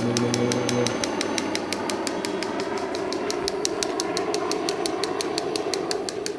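Battery-powered toy helicopter running its rotor: a steady motor whine with rapid, even clicking.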